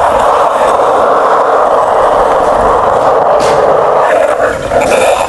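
Skateboard riding on bare Hello skate bearings with no wheels, the steel bearings rolling straight on concrete with a loud, steady grinding rumble. A sharp click comes about three and a half seconds in, and the rolling fades out near the end.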